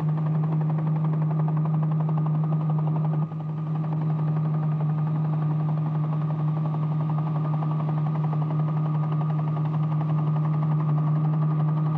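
Helicopter engine and rotor running steadily, a loud, even drone with a rapid fine pulsing, briefly dipping about three seconds in.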